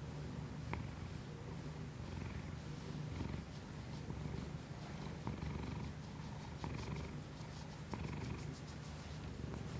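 A house cat purring close to the microphone: a low, steady rumble with a few faint clicks.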